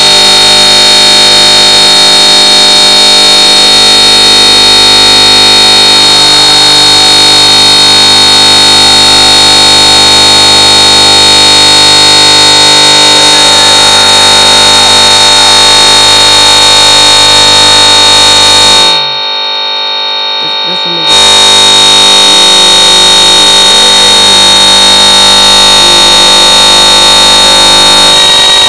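Very loud, distorted wall of steady buzzing drone with a piercing high whine on top, from a guitar amp-modelling app driven to full output through a modelled amp and hall reverb. It dips briefly about nineteen seconds in, then comes back at full level.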